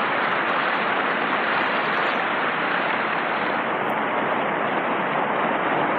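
Steady, static-like hiss at an even level, with no tone or rhythm in it.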